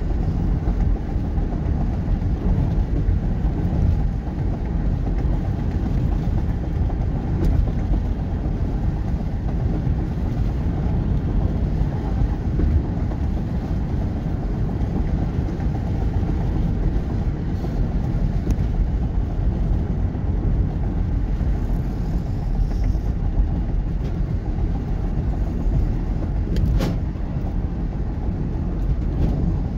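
Steady low rumble of a car driving at speed: engine and tyre noise on the road, with one short click near the end.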